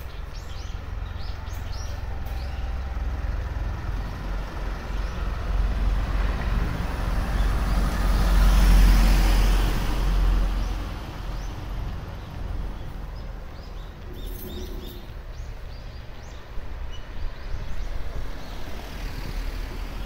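Street ambience with a motor vehicle passing close by, its sound swelling to a peak about nine seconds in and then fading. Short bird chirps come now and then over a low steady traffic rumble.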